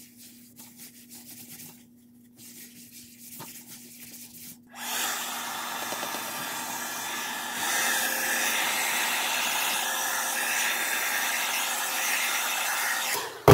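Paper towel wiping across a plastic cutting mat, faint, then a handheld hair dryer switches on about five seconds in and blows steadily over the mat to dry off rubbing alcohol. It grows louder about three seconds later and cuts off just before the end.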